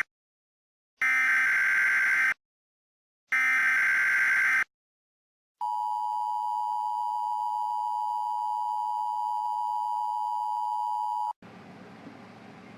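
Emergency Alert System tones announcing a severe thunderstorm warning. Two raspy data bursts of the digital SAME header, each a little over a second, are followed by the steady two-tone attention signal, which holds for about six seconds and then cuts off suddenly.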